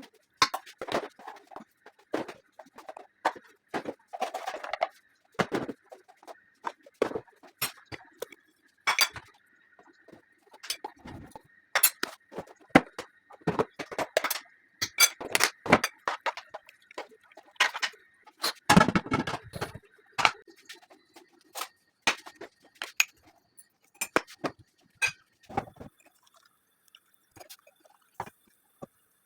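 Dishes and utensils clinking and clattering in irregular sharp knocks, with a denser clatter about two thirds of the way through and a faint steady whine behind them for much of the time.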